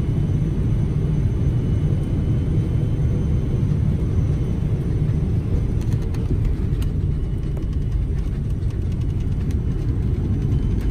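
Airliner cabin noise during the landing rollout: a steady low rumble from the jet engines and the wheels on the runway, with light rattles starting about halfway through.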